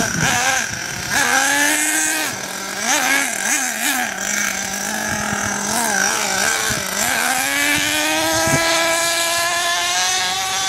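Radio-controlled car's motor whining as it is driven, its pitch wobbling up and down as the throttle is worked, then climbing steadily over the last few seconds.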